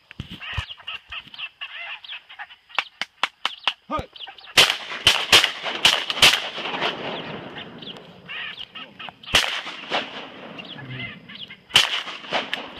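Shotgun fire: a rapid volley of about five shots a little over four seconds in, then single shots about nine and a half and twelve seconds in. Ducks call and chatter throughout.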